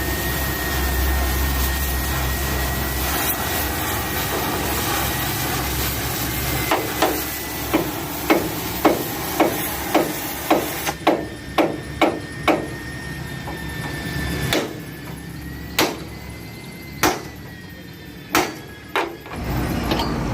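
A run of hammer blows, about two a second, then a few slower, spaced strikes, over a steady hum.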